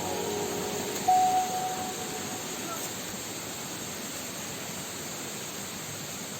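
Steady rushing roar of a waterfall. A last note of background music sounds about a second in and fades away.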